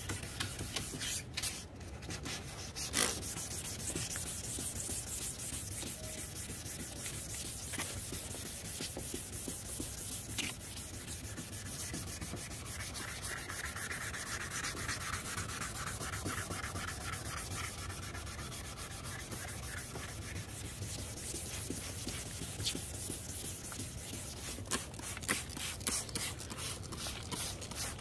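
Sandpaper scratching steadily over a plastic headlight lens, sanding off old clear coat and surface oxidation.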